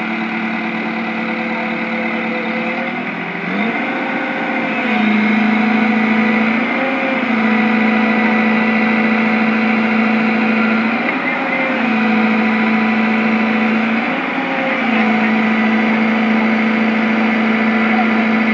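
Diesel engine of a Komatsu PC128US crawler excavator running at high revs as it pulls a stuck dump truck with its bucket. Its pitch sags briefly and recovers about four times as the hydraulics take load.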